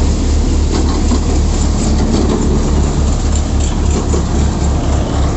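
Malwa multi-crop thresher threshing paddy at full speed, driven from the PTO of a Powertrac Euro 50 tractor whose diesel engine runs under load. A loud, steady mechanical din with a low, even pulsing throughout.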